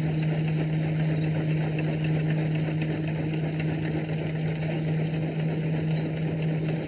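Threshing machine running: a steady, unchanging hum with a rushing noise underneath.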